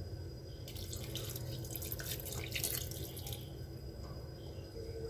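Water poured from a plastic cup into a stainless steel pot of chicken in soy sauce: a faint trickle and splash that starts about a second in and lasts about three seconds.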